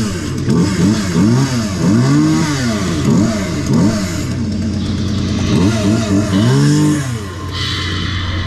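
Chainsaw revving up and down over and over, about two revs a second, over a steady low hum. It pauses about five seconds in and stops about seven seconds in.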